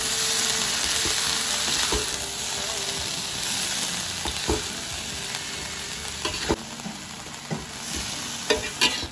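Fern greens sizzling in hot oil while being stirred with a metal spatula, which scrapes and knocks against the pan. The sizzle is loudest at first and slowly fades, with a few sharp knocks of the spatula near the end.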